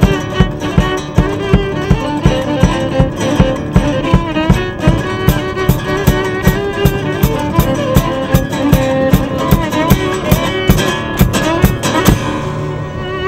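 Fiddle playing a bowed melody over a steadily strummed acoustic guitar.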